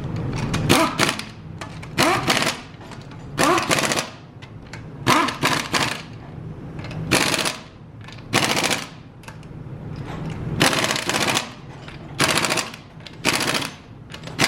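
Torque wrench ratcheting in short bursts of rapid clicks, about a dozen strokes roughly a second apart, as wheel lug nuts are tightened to about 100 lb-ft.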